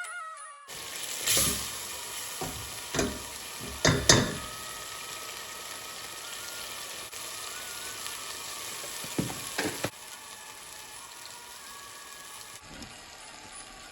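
Food frying in a pan with a steady sizzle. A spatula scrapes and knocks against the pan several times, loudest about four seconds in and again around nine to ten seconds.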